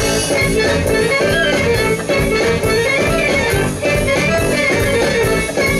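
Instrumental song intro: the full band comes in with guitar over a driving beat, after a violin passage ends.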